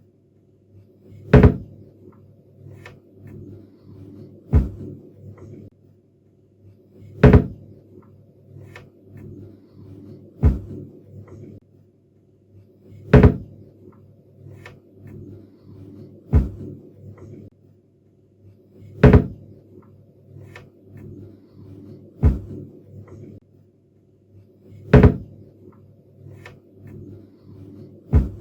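Kitchen cabinet door being shut over and over: a sharp clack about every three seconds, ten in all, with faint clicks of the door and catch in between. A low hum sits underneath in stretches.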